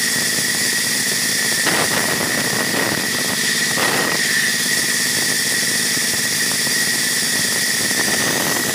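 Band saw running with a steady high whine while ripping an acacia board lengthwise; the cutting noise thickens briefly about two seconds in and again about four seconds in.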